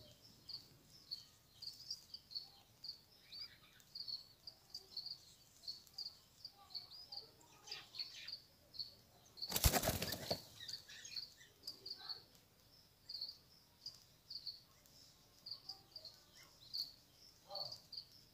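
A steady series of short, high chirps, about two a second, from a small bird. About ten seconds in there is a brief, loud rustling burst.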